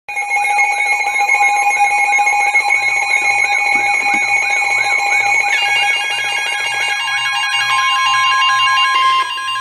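Emergency alert tones sounding together: a steady two-tone Emergency Alert System attention signal with a warbling alarm chirping about one and a half times a second over it. They start suddenly, and more tones join about five and a half seconds in.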